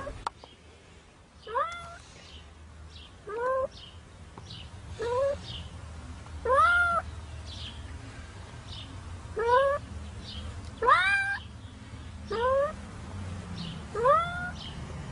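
A cat meowing over and over, about eight meows each rising in pitch and then holding, a second or two apart, over a steady low hum. The cat is trapped in set concrete up to its head.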